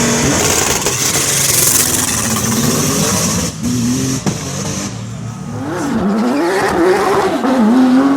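Rally car engine revving hard, its pitch dropping and climbing again and again through gear changes, with a few sharp cracks in the middle. Near the end it climbs steadily as the car pulls away.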